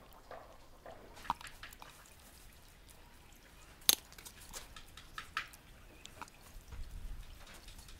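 Marinated chicken pieces squelching wetly as they are pushed onto flat metal skewers, with scattered clicks of the steel skewers against a metal tray. One sharp click about four seconds in is the loudest.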